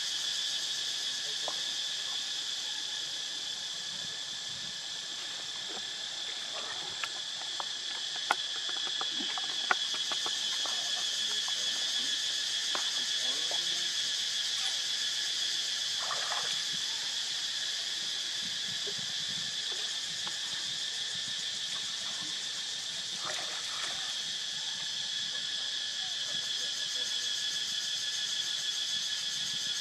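Steady high-pitched insect chorus, several shrill tones droning together without a break. A few faint clicks and brief short sounds are scattered through it.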